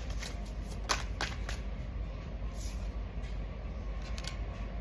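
Tarot cards being handled, with a few sharp flicks and snaps about a second in, over a steady background hum.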